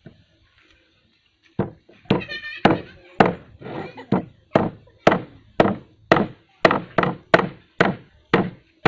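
Repeated dull knocks of a bottle pounding a snake's body against a wooden chopping board, about two blows a second, starting after a second and a half of quiet.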